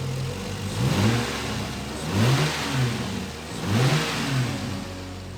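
Lexus IS300's 2JZ-GE inline-six idling and revved three times, each a quick rise and fall in pitch, running on freshly fitted plugs, wires and coils.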